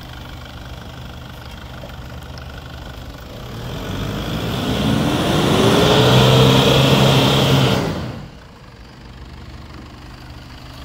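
Off-road 4x4's engine idling, then revved hard for about four seconds with a rising note as it tries to climb a clay slope. The revs cut off sharply and it drops back to idle: the mud-terrain tyres are spinning and clogging with clay.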